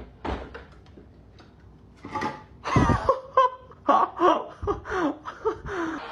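A person laughing in a string of short bursts that starts almost three seconds in, after a few faint clicks.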